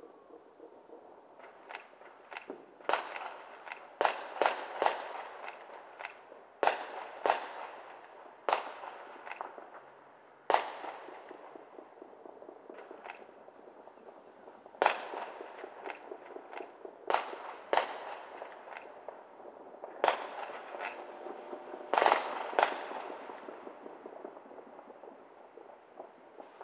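Irregular barrage of bangs and pops from New Year's fireworks and celebratory gunfire: about fourteen louder reports, each with an echoing tail, over a constant patter of smaller crackles.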